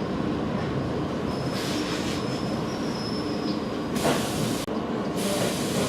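ED4M electric train running between stops, heard from inside the carriage: a steady rumble of wheels and running gear, with a thin high wheel squeal from about one and a half to three and a half seconds in. About four seconds in, a louder rushing burst.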